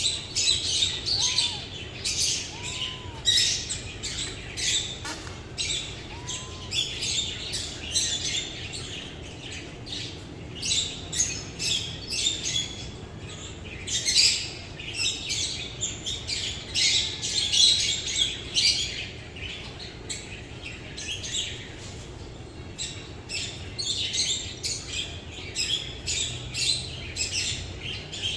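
Many small birds chirping and twittering, short overlapping calls packed closely throughout, with a few lower arched calls in the first several seconds.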